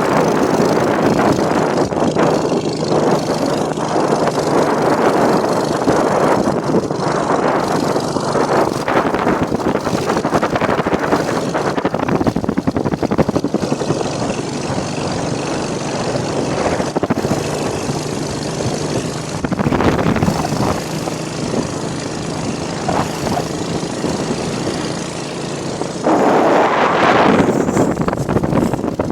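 Loud rushing wind and road noise from a moving vehicle, with a steady engine hum underneath; the wind noise swells louder near the end.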